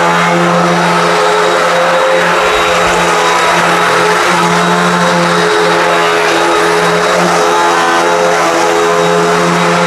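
Hoover WindTunnel High Performance upright vacuum running steadily, a loud motor drone over rushing airflow that wavers slightly in pitch.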